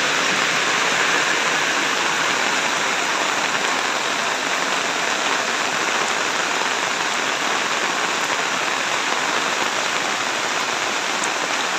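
Heavy rain pouring onto a wet road and dirt yard: a dense, even hiss that holds steady throughout.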